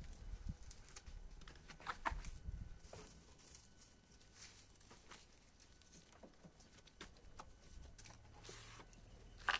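Faint, scattered light taps and rustles from cats moving about and playing, a little louder about two seconds in and again near the end.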